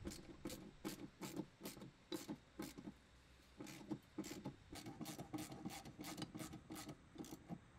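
Ratchet wrench clicking in repeated runs as it tightens the mounting bolts of a central air condensing unit's new compressor, with a short pause about three seconds in.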